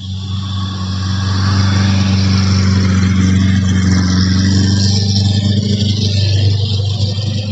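Combine harvester running: a steady, deep engine drone with a broad rushing machinery noise over it that grows louder over the first two seconds and then holds.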